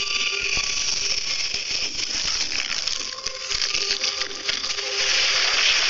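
Steady hissing noise with scattered mechanical clicks and rattles, getting louder about five seconds in.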